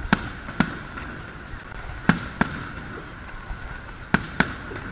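Fireworks aerial shells bursting overhead: six sharp bangs coming in pairs, a pair about every two seconds.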